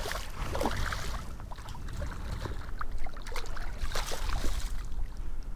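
Shallow water splashing and sloshing in scattered small bursts, from a wading angler bringing a hooked redfish in by hand, over a low steady rumble of wind on the microphone.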